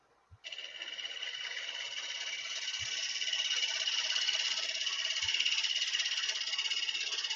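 A turning gouge cuts across the face of a maple burl platter spinning on a wood lathe. It makes a steady shaving hiss that starts about half a second in and carries on.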